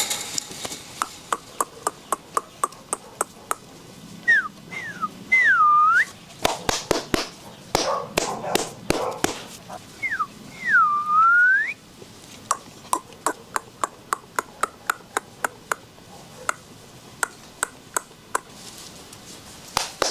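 Rapid tongue clicks, about two or three a second, with a few short whistles that dip and rise in pitch, made to catch a puppy's attention. Two brief louder bursts of rustling noise come in the middle.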